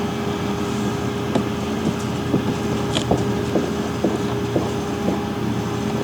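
A steady machine-like hum, like an engine running, with a series of short knocks about twice a second.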